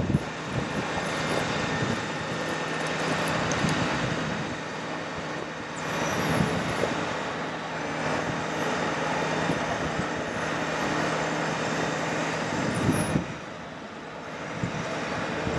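Diesel engine of a Ford F-550 bucket truck running steadily with its PTO driving the hydraulics of the Terex Hi-Ranger TL38P boom as the boom is raised.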